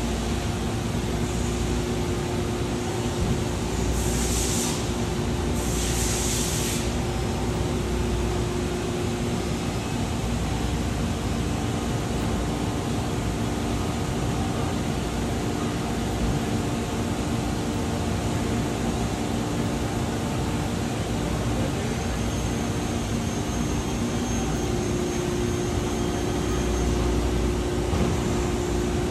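Steady hum of machinery in a machine shop, with a few constant low tones running through it. Two short hisses come about 4 and 6 seconds in.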